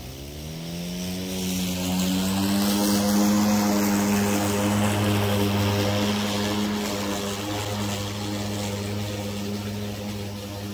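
Hart 20-inch 40 V brushless battery push mower spinning up, its motor and blade rising in pitch over the first second or so, then running at a steady hum with a hiss above as it cuts grass with the side-discharge chute fitted. It grows louder, then slowly fades as the mower is pushed away.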